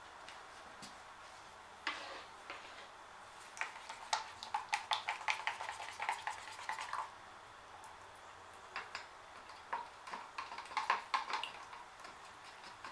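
Acrylic pour paint being stirred in a plastic cup: a stick clicking and scraping against the cup's sides in quick, irregular taps. There are two spells of stirring, one starting about three and a half seconds in and one about nine seconds in, with a single knock just before the first.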